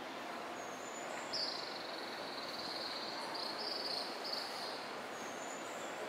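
A high, buzzing animal call: a trill lasting about three and a half seconds, broken twice, starting about a second and a half in. Two brief, higher chirps come at the start and near the end, over a steady hiss of open-air ambience.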